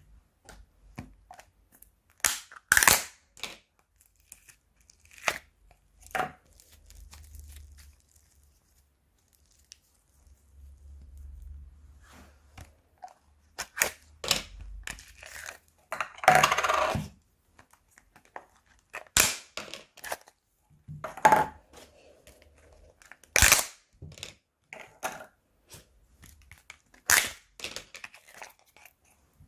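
Slime and plastic bags being handled: irregular sharp pops and crackles, with a longer crinkling stretch a little past halfway.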